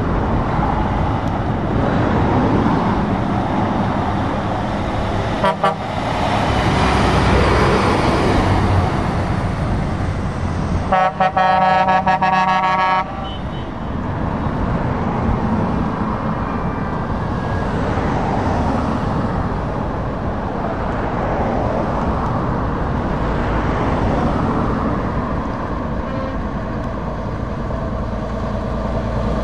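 Heavy lorries and cars driving past in a steady stream of road traffic, with a horn blast held for about two seconds near the middle that cuts off suddenly.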